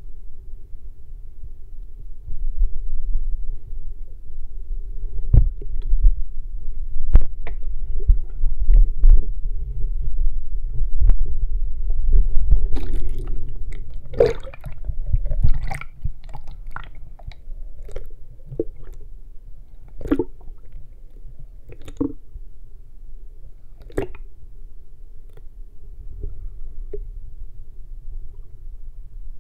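Muffled underwater sound picked up by an action camera in its waterproof case: a steady low rumble of moving water with scattered knocks and clicks, busiest in the middle stretch.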